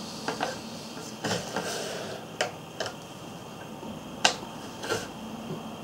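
Hand saddle-stitching leather: irregular small sharp clicks and a short soft rasp as blunt harness needles pass through pre-made holes and the bonded polyester thread is drawn through and pulled tight.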